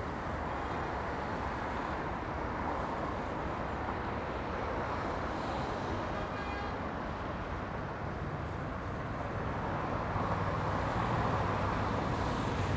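City street traffic: a steady wash of passing cars, with a vehicle's low engine rumble getting louder over the last few seconds.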